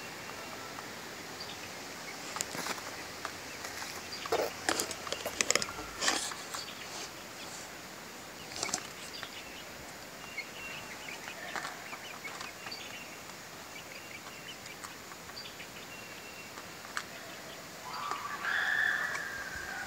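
Young chickens peeping softly in short high chirps, with a few scattered knocks and scratches in the first several seconds and a louder chicken call near the end.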